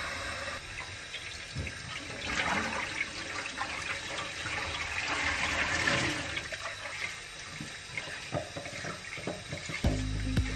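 Kitchen tap running into a stainless steel sink and into a pot of just-boiled eggs, getting louder as the pot is tipped and filled, with a few light knocks of the pot near the end.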